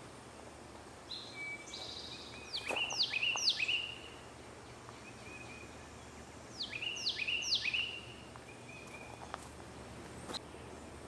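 A songbird singing two short phrases about four seconds apart. Each phrase is a quick run of three down-slurred whistled notes mixed with short steady notes, over a steady low background hiss, with a few faint clicks.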